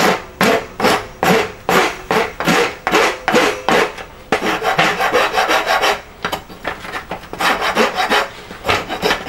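Hand file rasping back and forth across the sawn end of a small wooden block, smoothing the freshly cut edge. The strokes are loud and even, about two and a half a second, with a run of quicker, closer strokes about halfway through.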